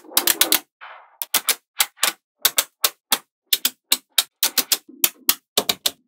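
Small neodymium magnetic balls clicking sharply as they snap together, in quick clusters of two to four clicks about every half second. A short rustling rattle comes about a second in.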